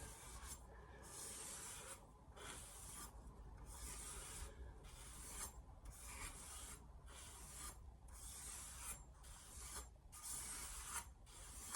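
Steel knife blade being stroked across a sharpening stone, a faint rasping scrape repeated about once a second with short pauses between strokes.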